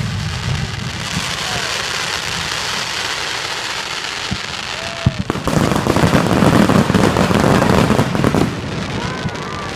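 Fireworks going off: a continuous crackling and popping that grows much denser and louder for about three seconds from roughly five seconds in, then eases back.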